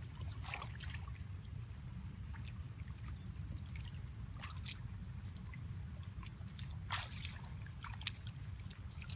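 Water sloshing and dripping, with scattered short splashes and squelches, over a steady low rumble.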